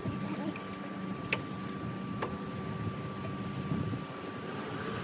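Steady mechanical hum with two sharp metal clinks of hand tools against metal in an engine bay, one about a second in and a fainter one about two seconds in.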